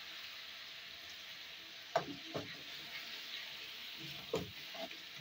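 Tomato masala sizzling steadily in a hot kadhai as a little water goes in, with a metal spoon knocking and scraping against the pan a few times, about two seconds in and again near the end.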